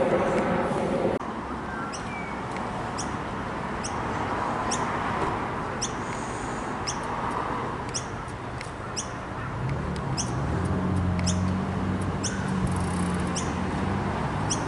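A small bird chirps over and over in short, high, rising notes, about once or twice a second, over the steady rumble of an Airbus A320 jet airliner climbing overhead. A low steady drone joins about halfway through.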